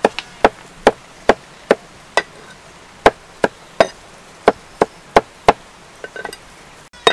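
Cleaver mincing fish paste with garlic and chilies on a thick wooden chopping board: sharp chopping knocks about two to three a second, with a short pause partway through, stopping about five and a half seconds in, then a few lighter taps.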